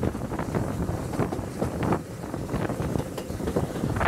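Wind buffeting a microphone held out of a carriage window, over the running noise of a train hauled by the steam locomotive SR West Country Class 34027 Taw Valley.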